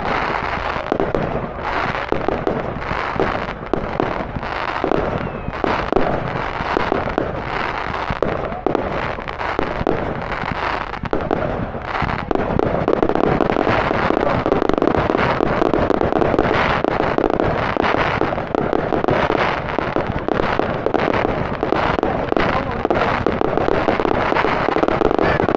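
Fireworks display going off continuously: rapid bangs and pops throughout, thickening into a dense, unbroken crackle from about halfway.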